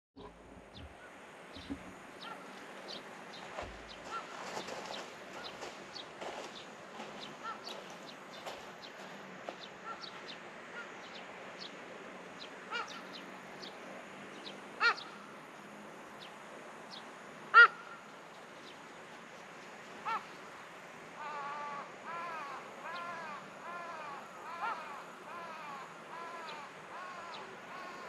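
Wild birds calling: scattered short chirps, with two loud single calls a few seconds apart about halfway through. Near the end comes a quick series of repeated arched, whistled notes.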